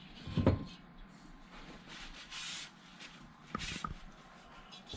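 Quiet handling noises at a workbench as an air-cooled VW cylinder head is moved about: a soft knock about half a second in, some light rubbing, and two small clicks near the end.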